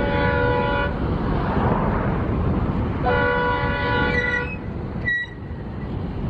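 Diesel locomotive's air horn sounding in long blasts, one ending about a second in and another from about three seconds to four and a half, over a steady low rumble.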